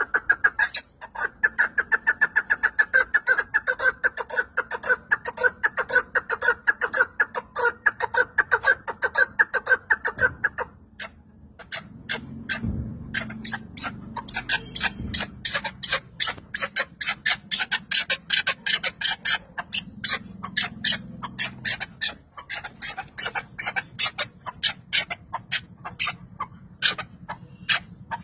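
Chukar partridge calling in a rapid run of repeated notes for about ten seconds. After a brief pause it takes up a harsher, higher-pitched run of quick notes.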